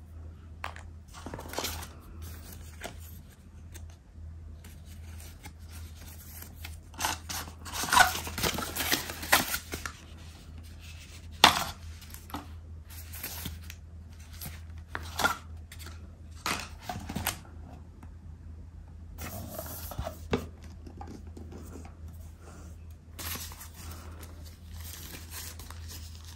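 Thin frosted wrapping sleeve around a phone case being handled and pulled open: irregular rustling and crinkling with small knocks of packaging. It is busiest about a third of the way in, with one sharp snap near the middle.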